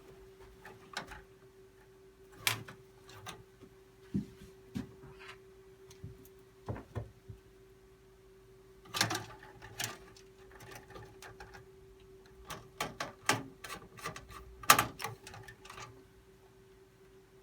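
Irregular clicks and knocks of metal and plastic PC parts being handled and fitted into a computer case, with a faint steady hum underneath.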